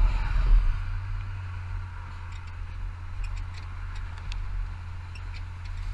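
First-generation Dodge Ram's 5.9-litre Cummins inline-six turbodiesel running steadily under load while towing, a low even drone mixed with road and wind noise, louder for the first half second. A few faint ticks come through later.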